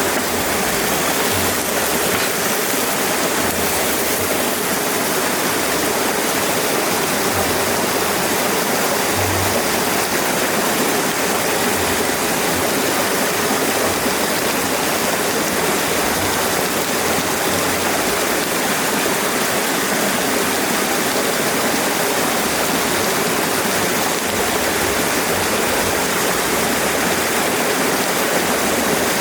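River water flowing in a steady, unbroken rush, with faint low thumps now and then.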